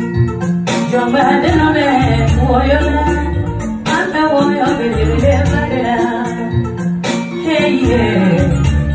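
A woman singing a melodic line into a microphone, amplified, over a musical accompaniment with a low bass line, sustained keyboard-like tones and light rattling percussion.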